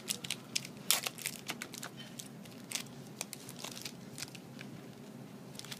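Foil trading-card booster pack wrappers crinkling and crackling as they are handled, in quick irregular crackles that come thickest about a second in.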